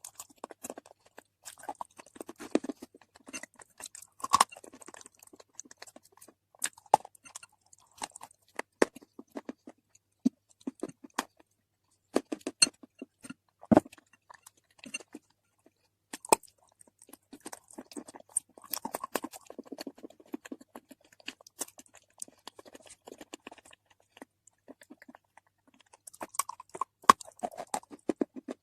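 Close-miked biting and chewing of non-roasted nakumat: irregular sharp crunching cracks with gritty chewing between them, one especially loud crack about halfway through.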